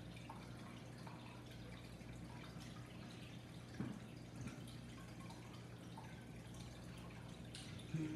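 Quiet eating sounds: small wet clicks of chewing and lips, with food being picked apart on a plate by hand and fork, over a steady low hum. Two louder soft knocks come about halfway through.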